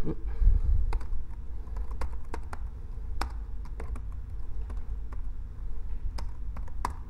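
Typing on a computer keyboard: scattered, irregular key clicks over a low steady rumble.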